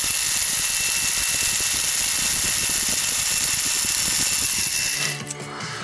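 Small high-speed electric drill running steadily with a high whine as a 0.050 bit drills out the rivet post of a die-cast toy car chassis, stopping suddenly about five seconds in.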